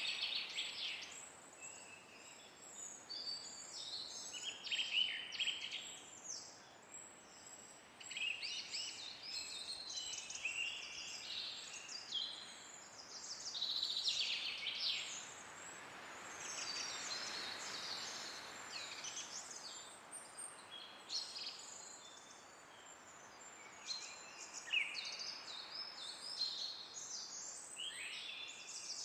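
Several small songbirds chirping and twittering in quick, high runs of notes, overlapping throughout. A soft gust of wind swells and fades about halfway through.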